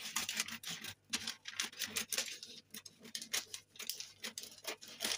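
Scissors snipping through brown pattern paper: a quick, irregular run of short snips with the paper rustling.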